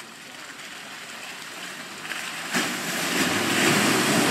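Land Rover Defender 90 driving through mud, its tyres splashing through wet ground. A quieter approach gives way, about halfway in, to a loud rush of mud and water thrown up by the front wheel.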